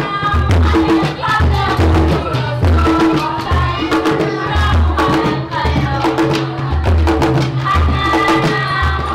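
A girls' kourel chanting a religious song together, several voices in unison over a steady, repeating low beat.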